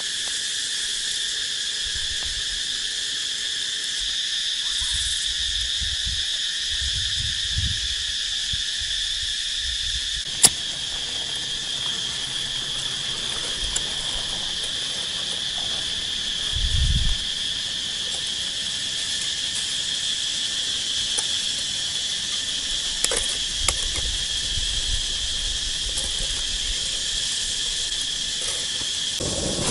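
Cicadas calling in a steady, continuous high chorus. A sharp click comes about a third of the way in, and a short low thump a little past the middle.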